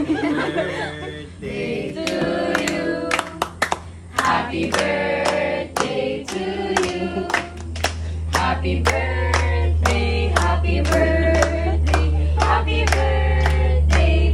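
A group of voices singing a birthday song together, with steady rhythmic hand clapping. A low steady hum swells in about halfway through.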